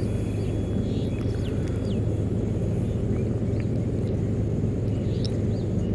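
Steady low outdoor rumble with a few faint, short bird chirps scattered through it.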